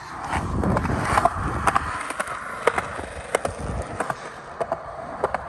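Skateboard wheels rolling over concrete, with scattered sharp clacks from the board; the rolling is strongest in the first two seconds.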